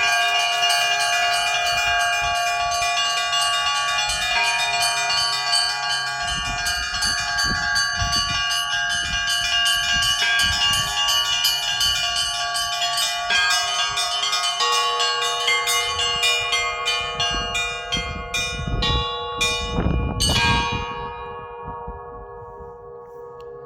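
Russian Orthodox church bells ringing in a dense, rapid peal, small bells struck quickly over the longer tones of larger bells. Near the end the strikes stop and the bells ring out and fade.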